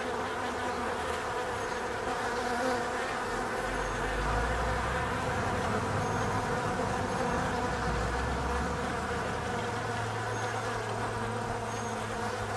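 Many flying insects swarming, a dense steady buzzing hum. A low rumble sits beneath it from about four seconds in.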